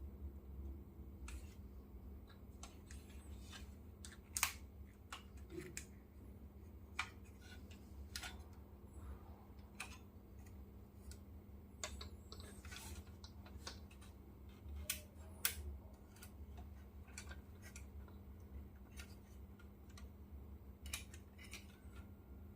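Faint, irregular light clicks and taps, the handling sounds of a 1:18 diecast model car being moved and its parts worked, over a low steady hum. The sharpest clicks come about four and a half seconds in and again about fifteen seconds in.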